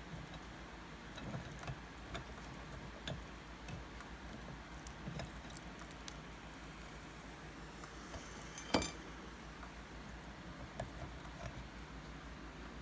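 Scattered light clicks and taps of kitchen handling, with one sharper click about nine seconds in, over a faint low hum.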